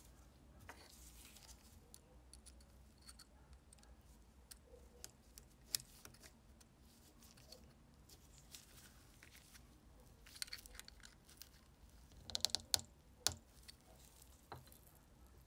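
Quiet workbench handling of a small metal lighter part and a hand scraper: scattered light clicks and scrapes, one sharp click a little under halfway through, and a quick run of sharper clicks about three-quarters of the way through.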